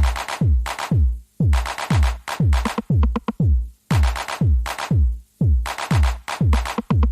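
Background electronic music with a steady beat of deep falling-pitch kick drums, about two a second.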